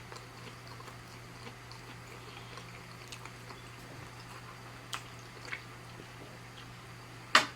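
A person chewing close to the microphone: soft, scattered mouth clicks and two small smacks about five seconds in, then one sharp, loud click near the end. A low steady hum runs underneath.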